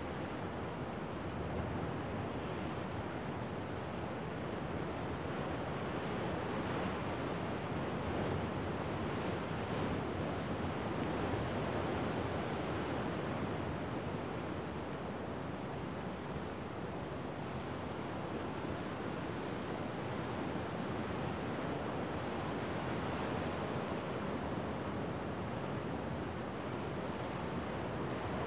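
Rough winter Sea of Japan surf breaking over a rocky shore: a continuous wash of crashing waves and foaming water, steady with a slight swell about ten seconds in.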